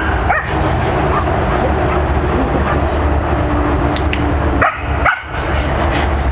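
A dog barking: two sharp barks about five seconds in, with a shorter one just after the start, over a steady low rumble.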